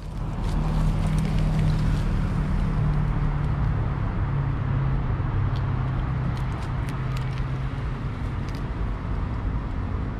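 Steady low engine rumble, with a few faint clicks of a cat licking a paste treat from a squeeze tube.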